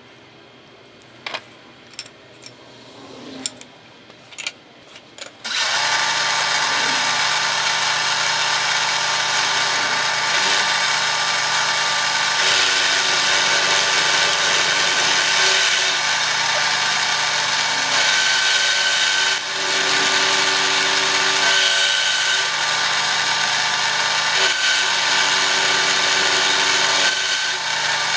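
A few light metallic clicks and taps, then about five seconds in an Excello vertical milling machine starts suddenly and runs steadily, its end mill cutting the end of a rectangular steel tube. The sound is sped up fourfold.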